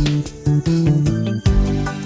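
Instrumental intro theme music with a steady beat.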